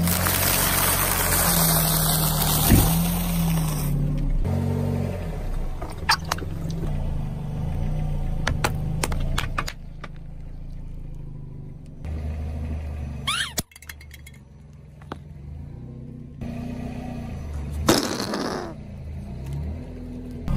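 A car tyre rolling over and crushing a series of objects, with the car's engine running low beneath. A dense crunching crackle as a row of wafer biscuits is flattened fills the first few seconds. Scattered cracks and snaps follow, then a sharp pop about two-thirds of the way in and a short rush of noise near the end.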